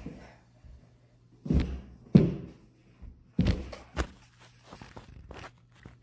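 Four heavy, dull thumps of feet on a hard floor, the second the loudest, followed by a few lighter knocks and clicks.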